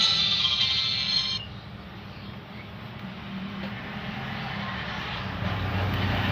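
An itel keypad phone's power-on jingle playing through its small speaker and cutting off about a second in, followed by a steady low hum.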